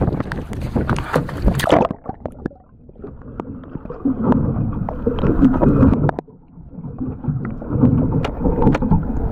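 Wind buffeting the microphone over choppy sea, then about two seconds in the camera plunges underwater and the sound turns dull and muffled: water rushing past the camera housing with scattered knocks, fading and swelling twice.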